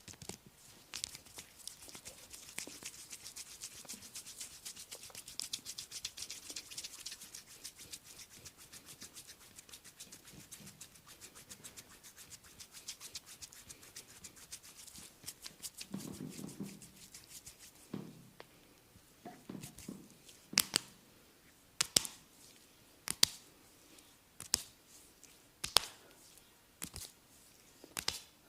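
Head massage: hands rubbing briskly through hair and over the scalp, a dense crackling rustle. About two-thirds of the way in it gives way to seven sharp strikes, about one every 1.3 seconds.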